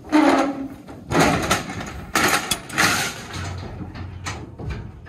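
Knocking and clattering on the aluminium walls and floor of a livestock stock trailer as bulls move about inside it, in several loud bursts over the first three seconds that then die down.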